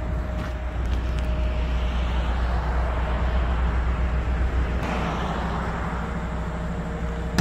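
Heavy diesel truck engine idling with a steady low rumble, most likely the 480 hp engine of the MAN 25-ton cargo truck.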